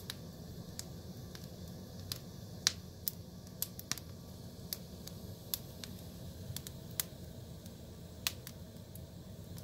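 Wood fire burning in a fireplace, crackling with irregular sharp pops over a low steady rumble. The loudest pop comes a little under three seconds in.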